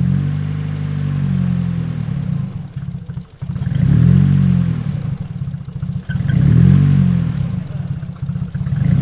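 Nissan Silvia S14's SR20 four-cylinder engine being revved in repeated swells that rise and fall, running unevenly with stuttering dips between revs: the sign of its persistent misfire.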